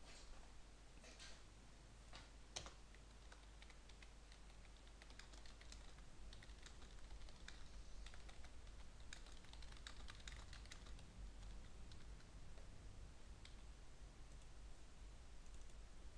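Faint typing on a computer keyboard: a quick run of key clicks, busiest in the middle, after a few separate clicks near the start.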